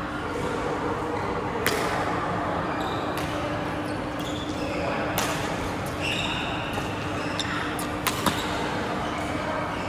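Badminton game in an indoor hall: a few sharp racket hits on the shuttlecock, including two in quick succession near the end, over short high squeaks and background voices.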